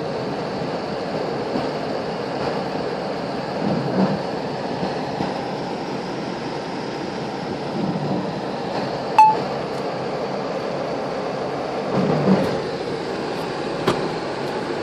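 Steady rain noise, with a low swell about every four seconds and one sharp click about nine seconds in.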